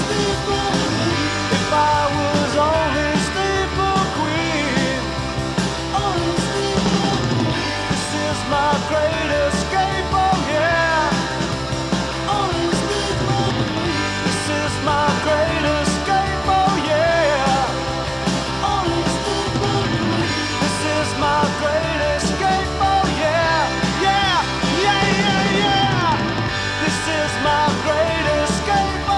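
Rock band playing: guitars, bass guitar and drums, with a steady drum beat and bending guitar lines over it.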